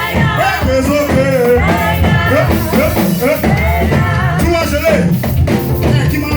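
Live church praise music: singing with a band and percussion keeping a steady beat.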